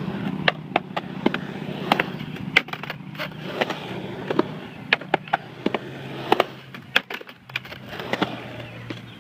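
Skateboard on a concrete skatepark: urethane wheels rolling with a low rumble, broken by many sharp, irregular clacks as the board's tail and trucks strike the concrete and the ramp edge.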